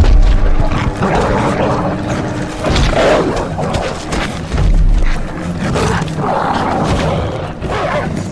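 Film fight soundtrack: orchestral score under creature roars and snarls from the Hulk and the mutant dogs, with heavy impacts. Deep booms hit at the start and again about five seconds in.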